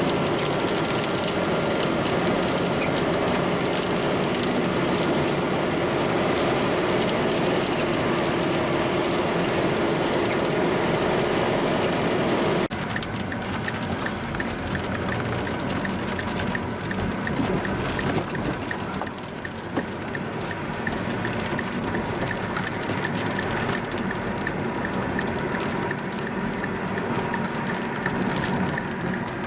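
Steady rain and road noise from a moving vehicle. About 13 seconds in it cuts abruptly to a slightly quieter, more uneven stretch of the same kind of noise.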